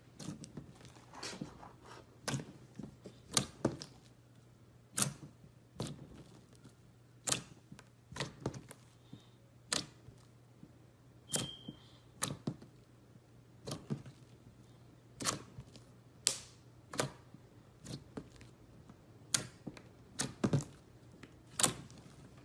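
Clear slime being pressed and folded by fingers, giving sharp clicking pops at an uneven pace of about one a second.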